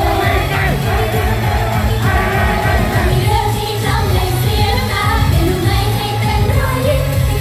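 Thai idol-pop song through stage PA speakers: a female group singing over a pop backing track with a steady beat.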